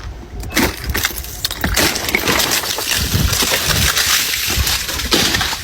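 Ice breaking up with a dense run of cracking, crunching and tinkling, many small sharp snaps one on another, growing louder about half a second in.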